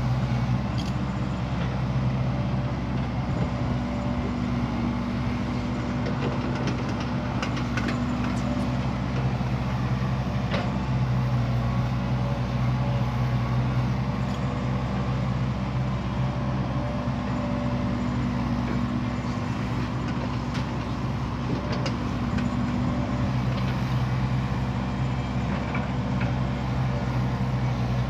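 Heavy diesel earthmoving machinery, an excavator or dump truck, running steadily, its engine hum holding one pitch and swelling a little now and then, with a few faint knocks.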